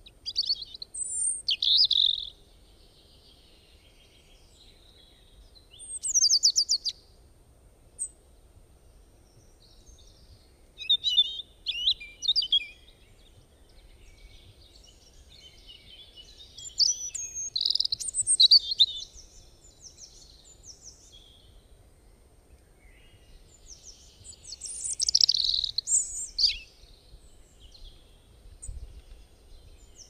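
Birdsong: short phrases of high chirping and twittering notes come in about five bursts with pauses of a few seconds between them. One phrase is a rapid trill.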